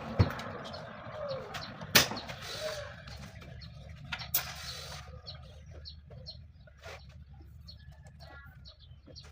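Small birds chirping over and over, with three sharp clicks or knocks in the first half, the loudest about two seconds in.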